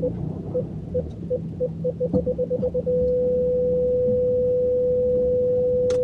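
Land Rover's reverse parking sensor beeping, the beeps coming faster and faster and merging into one continuous tone about three seconds in: the car is reversing right up to the caravan's hitch and the obstacle is very close. The engine rumbles underneath.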